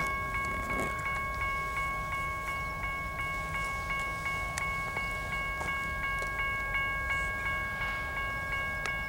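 Level-crossing warning bell ringing with rapid, even strokes, each stroke ringing on into the next, warning of an approaching train.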